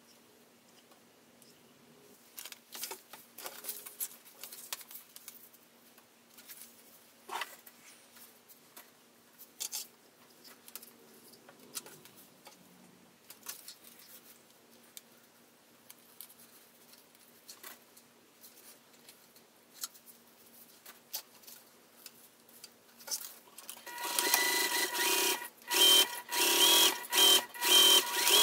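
Scattered small clicks and taps, then, about 24 seconds in, a Juki sewing machine stitching at speed in several short runs, stopping and starting between them.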